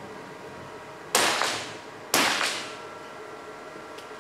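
.22 free pistol shots on the indoor range: two sharp reports about a second apart, each trailing off in reverberation. A faint click comes near the end.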